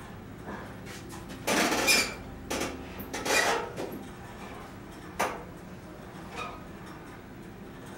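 Clanks and rattles of a home gym cable machine as the cable handles are pulled and let back during seated rows: a loud clattering burst about one and a half seconds in, another around three and a half seconds, and a single sharp clank a little after five seconds.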